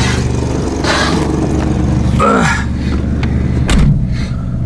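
Old car's engine idling steadily, with a single knock about three-quarters of the way in.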